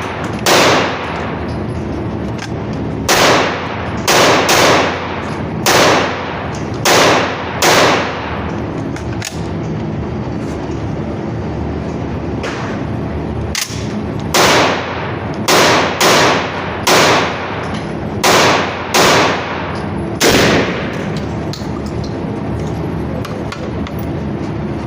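Gunfire, single shots fired about a second apart: two strings of roughly seven shots each, with a pause of about six seconds between them and a steady noise underneath.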